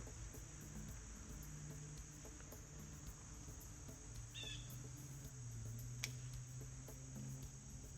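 Crickets chirping in a steady outdoor chorus: a continuous high trill with regular faster pulses above it. A short bird chirp is heard about four seconds in and a single click near six seconds.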